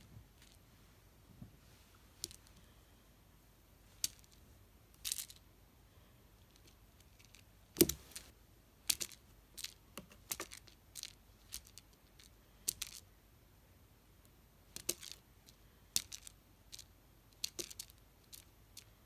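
Scattered light clicks and short scratchy rustles, irregularly spaced, in a quiet room, with the loudest, a thump, about eight seconds in.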